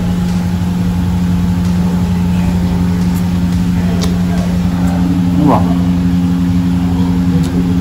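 A steady, unchanging low mechanical hum, with a brief falling sound about five and a half seconds in.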